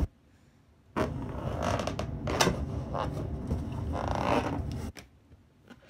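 An inflated rubber balloon pressed and rubbed by hand against a carpet, squeaking and scraping for about four seconds. It starts about a second in and cuts off abruptly near the end.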